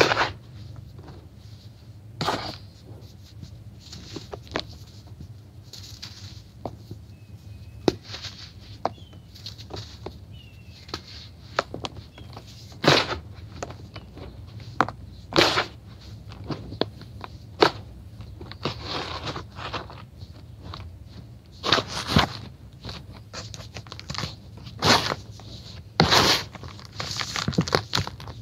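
Hands crushing and crumbling dry, crispy powder blocks in a plastic basin: irregular soft crunches and crackles at an uneven pace, a handful of them louder, over a faint steady low hum.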